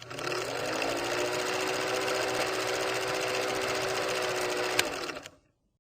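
A small machine running with a fast, even clatter over a steady hum for about five seconds, with a sharp click near the end, then dying away.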